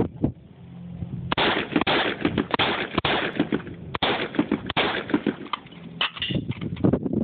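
Rapid gunshots from a handgun and a semi-automatic rifle: one shot right at the start, then from about a second in a long string of quick shots, a few a second with short pauses between groups.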